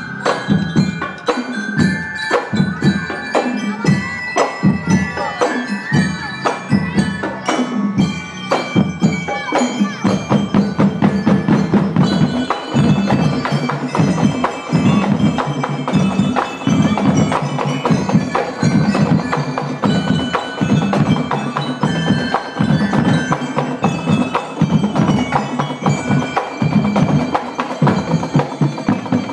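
Drum and lyre band playing a tune: bell lyres ring out the melody over a steady beat of marching bass and snare drums.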